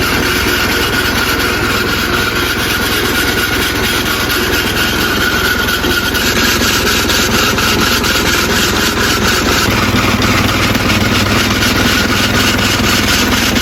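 Engine-driven grain mill running steadily, grinding soaked grain for pap. Its low hum grows a little stronger about ten seconds in.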